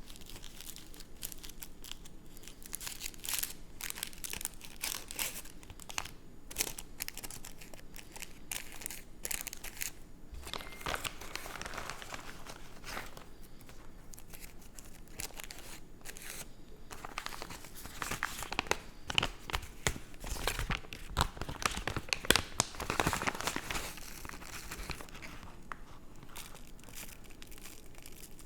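A cigarette being rolled by hand: cigarette paper and loose tobacco rustling and crinkling between the fingers in a run of small crackles and clicks, busiest and loudest about two thirds of the way through.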